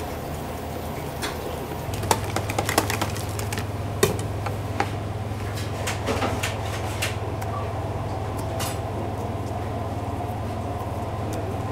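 A whisk clicking and scraping against a plastic container as batter is mixed, most busily in the first half, over a steady low kitchen machinery hum that grows louder about two seconds in.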